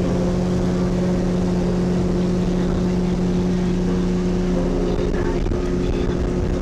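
Ski boat running at speed: a steady engine drone with the rush of water from the hull and wake.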